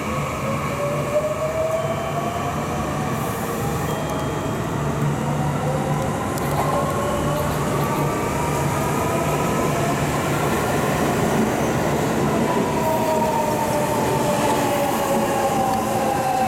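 JR Central 315 series electric train pulling into a station: a steady rumble from wheels on rails, with the motors' whine in several gliding tones that fall in pitch over the last few seconds as it slows.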